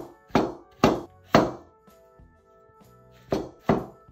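Chef's knife chopping through Korean zucchini onto a wooden cutting board: a quick run of sharp knocks, a pause, then two more chops near the end. Soft background music plays underneath.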